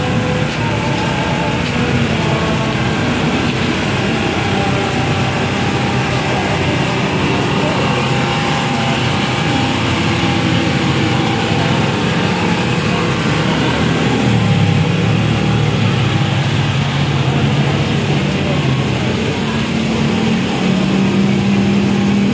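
A small engine running steadily under the murmur of a crowd, its pitch dipping and settling again about two-thirds of the way through.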